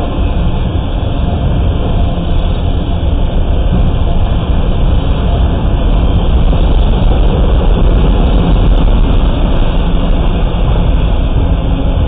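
Autorack freight cars rolling past close by: a loud, steady rumble of steel wheels on rail, with a scattering of faint clicks in the middle.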